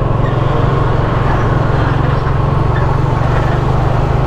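Steady drone of a vehicle's engine with road and wind noise, cruising at an even speed.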